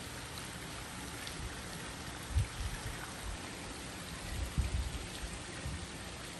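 Steady patter and hiss of icy precipitation falling in freezing weather. A few short low thumps come about two and a half and five seconds in.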